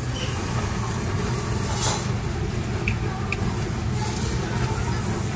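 Steady low hum of a tabletop yakiniku grill's built-in smoke-extraction fan, with the light sizzle of a hamburger patty cooking on the grate. There is a short hiss about two seconds in and two small metallic clicks about a second later as tongs work the patty.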